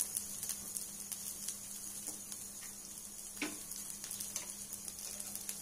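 Sabudana vadas frying in a little refined oil in an appe pan: a steady soft sizzle with scattered small pops and crackles, one sharper pop about three and a half seconds in.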